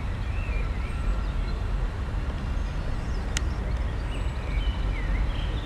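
Steady low outdoor rumble with a few faint short chirps, and one sharp click about three and a half seconds in.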